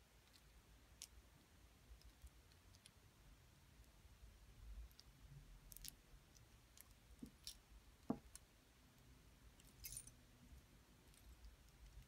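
Faint, scattered clicks and taps of metal fashion rings being picked up and handled, knocking against one another and against long fingernails. The loudest is a single knock about eight seconds in.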